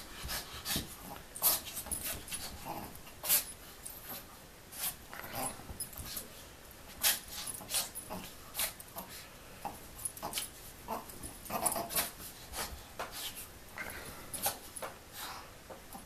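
A small dog and a ferret play-wrestling on a fabric couch: irregular quick scuffs, scratches and snuffling huffs, several a second, with the dog's breathing and small vocal noises mixed in.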